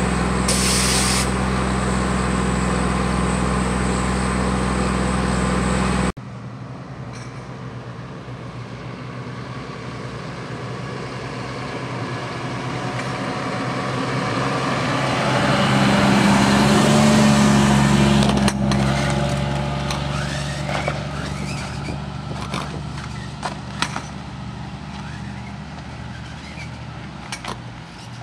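A heavy vehicle engine runs steadily and stops suddenly about six seconds in. Then another heavy engine grows louder, is loudest about seventeen seconds in, and fades away, like a truck passing by.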